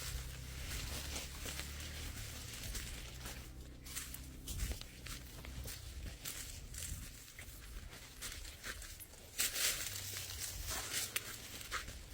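Rustling and crackling of dry leaves and brush with scattered snaps, with wind rumbling on the microphone for the first four seconds or so and a louder rustle about nine and a half seconds in.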